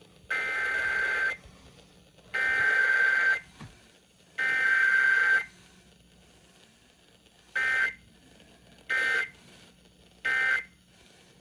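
Emergency Alert System SAME digital data bursts, a raspy two-tone modem-like screech: three header bursts about a second long each, a second apart, then three short end-of-message bursts.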